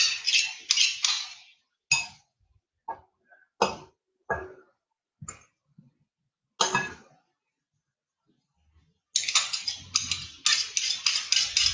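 Metal spoon and knife scraping and clinking against a glass mixing bowl while sticky chocolate cornflake mixture is scraped out. There are rapid scraping strokes at the start, then a few separate taps, a pause, and rapid scraping again near the end.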